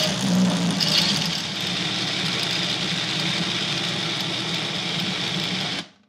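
Tribest Personal Blender's motor running steadily as it purées a thick tomato ketchup mix, a constant hum with a high whine, then stopping suddenly near the end.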